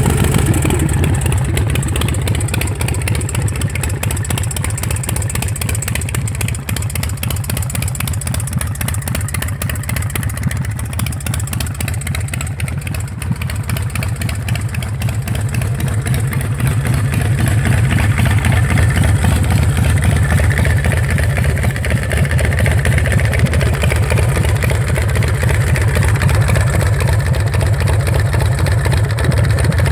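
S&S Super Sidewinder 124-cubic-inch V-twin of a custom chopper running steadily through wrapped stainless pipes, a little louder from about halfway in.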